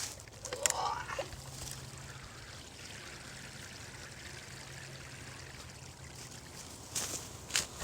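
Water splashing, then trickling steadily out of the many small drilled holes of a 5-gallon bucket filter lifted out of a pond. A few sharp clicks near the end.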